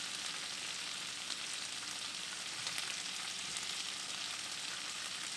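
Diced zucchini and red bell pepper sizzling in hot oil in a skillet: a steady frying hiss with a few faint pops.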